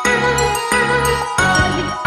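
Instrumental background music: a melody of sustained pitched tones over a continuous bass line, with notes changing at a steady pace.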